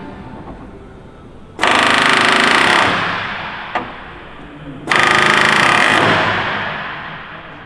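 Pneumatic rivet gun hammering on aircraft aluminium in two bursts of just over a second each, with the echo dying away after each burst.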